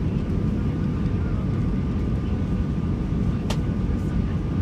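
Airbus A320 cabin noise: a steady, loud rumble of engines and airflow with a faint steady whine above it. A single sharp click sounds about three and a half seconds in.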